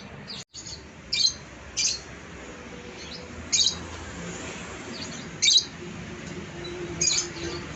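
Yellow lovebird giving short, high chirps, about five of them, spaced a second or two apart.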